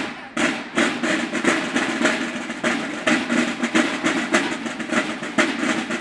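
Snare drums of a banda de guerra playing a driving march cadence, several sharp strokes a second in an even rhythm.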